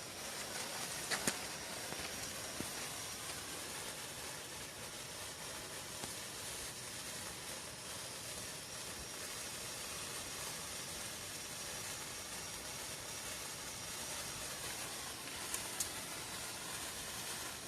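Handheld firework burning with a steady hiss, with a few sharp crackles about a second in and again near the end.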